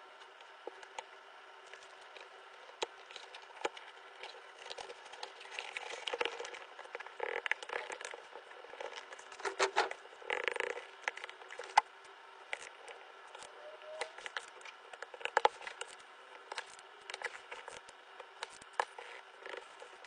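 Faint handling noise of a cardboard box and a speaker driver being fitted into a hole cut in it: irregular scrapes, taps and rustles, busiest around the middle, over a faint steady hum.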